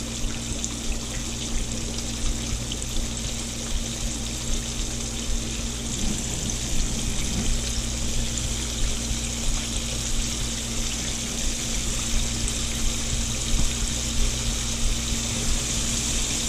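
Breaded catfish pieces deep-frying in hot oil, a steady sizzle, with a steady low hum underneath.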